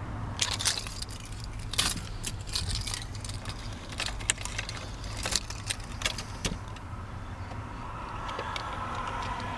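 Keys on the ignition key ring jangling and clicking against the steering column as the key is worked in the ignition, a run of sharp clicks lasting several seconds. A faint steady hum comes in near the end.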